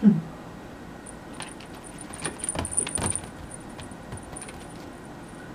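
A kitten scampering and pouncing on tatami mats: light jingling with soft taps and scuffs, busiest about two to three seconds in. Right at the start comes one short, loud sound that drops in pitch.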